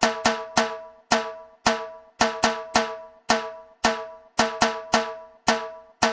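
Background music: a tuned drum struck in an uneven rhythm of about two to three strokes a second, each stroke ringing briefly and dying away.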